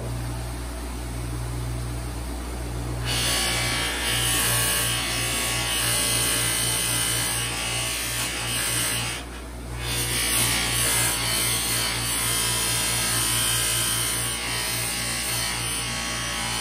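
Electric bench buffer running, its sewn buffing wheel loaded with white diamond compound. From about three seconds in, a knife's stabilized wood handle is pressed against the spinning wheel, adding a steady rubbing hiss over the motor hum. The hiss drops out briefly near the middle, then resumes.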